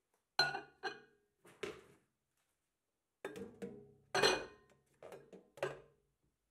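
A glass measuring jug is set down on a microwave's glass turntable with a few ringing clinks. About three seconds in, a clear plastic microwave cover is lowered over it and lands with a quick cluster of knocks and clatters.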